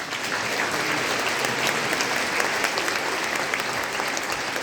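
Concert hall audience applauding: steady, dense clapping that starts abruptly and holds at an even level.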